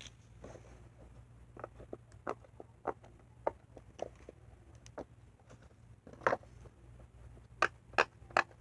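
Handheld square puppet fidget toy being squeezed and worked to make its clicks: a run of sharp, irregular small clicks, roughly two a second, with a quicker cluster near the end.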